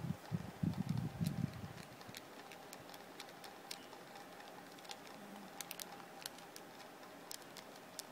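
Casio fx-991MS scientific calculator keys being pressed: scattered, irregular soft clicks. A few low thumps of the calculator being handled come in the first second or two.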